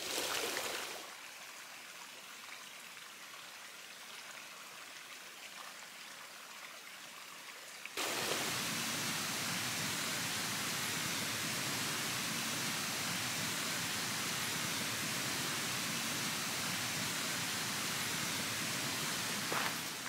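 Steady rushing of water in a mountain stream, quieter at first and then suddenly louder about eight seconds in.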